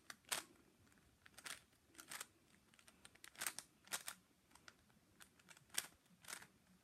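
Rubik's cube being twisted by hand: faint, irregular plastic clicks and rattles as the layers turn, a dozen or so short strokes.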